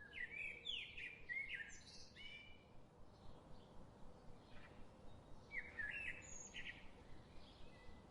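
Birds chirping in short, quick phrases: a cluster in the first two seconds and another about six seconds in, over a faint steady hiss.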